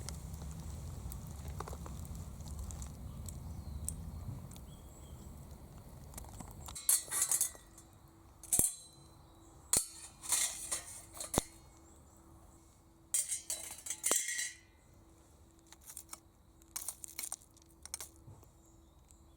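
Wood fire crackling, with scattered sharp pops and short bursts of crackle over about ten seconds, after a few seconds of low rumble.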